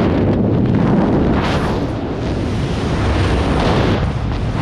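Freefall wind rushing over a body-mounted camera's microphone: loud, steady buffeting with a deep rumble.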